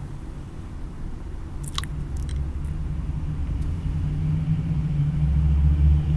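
Low vehicle rumble with a steady hum, growing louder over the last few seconds, and a few faint clicks about two seconds in.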